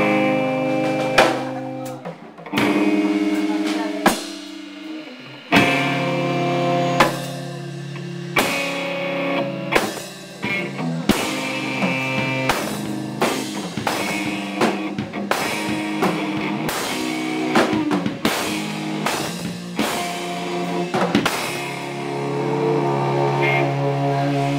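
Band music without vocals: a drum kit and guitar playing a rock-style song, with regular drum hits over held chords.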